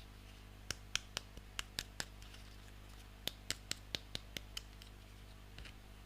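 Small plastic toy pieces handled and tapping together, giving a run of sharp clicks: about six in quick succession, a pause of a second, then about seven more, and one faint one near the end.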